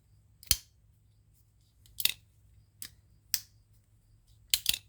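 Ganzo Firebird F720 folding pocket knife being worked open and shut by hand: about six sharp, separate clicks and snaps spaced irregularly, the first the loudest.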